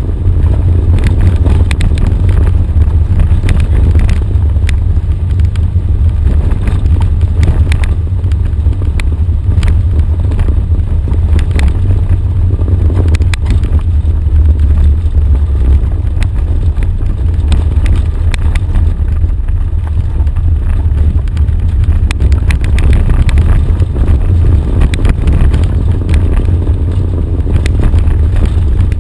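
Off-road vehicle driving a rough dirt track: a loud, steady low rumble of engine and wind on the exposed hood-mounted camera, with frequent scattered clicks and knocks from gravel and bumps.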